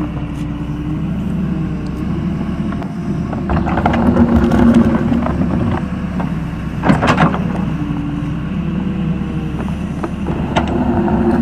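Wheeled excavator's diesel engine running steadily, with a faint whine that rises and falls. A spell of knocks and clatter comes about four seconds in, and one sharp knock about seven seconds in.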